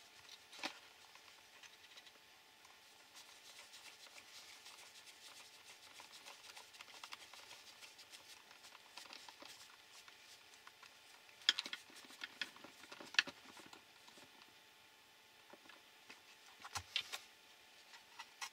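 Faint rubbing and scratching as a screwdriver works screws into the plastic chassis parts of a Tamiya XV-01 PRO RC car kit. A few sharp clicks of small parts are knocked together, two in the middle and a short cluster near the end.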